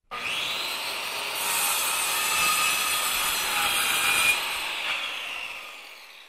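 End-card sound effect: a steady, noisy sound that starts suddenly, grows brighter for a few seconds in the middle, then fades out near the end.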